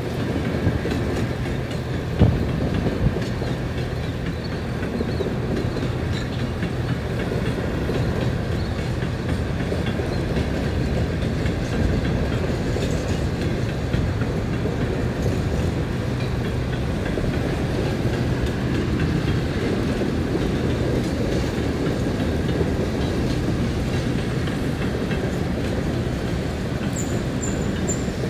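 Empty open-top hoppers and gondolas of a freight train rolling past over a grade crossing, a steady rumble of wheels and cars. There is a single sharp knock about two seconds in and a quick repeating high ping near the end.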